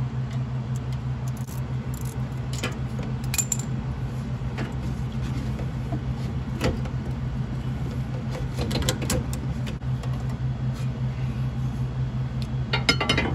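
Scattered metallic clicks and clinks of a socket wrench working on the hose clamps of a turbocharger's intake pipes, with quick runs of ratchet-like clicking about 9 seconds in and near the end. A steady low hum runs underneath.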